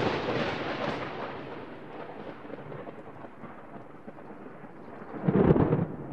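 Logo intro sound effect: a noisy hit that fades slowly away over several seconds, then a second, shorter swell about five seconds in.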